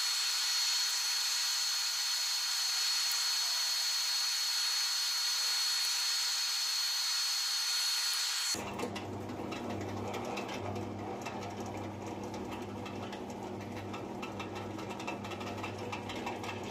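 Small benchtop disc sander running free with no workpiece on it: a steady high hiss with a thin constant whine. After about eight and a half seconds it cuts suddenly to a drill press motor running, a lower hum that pulses steadily.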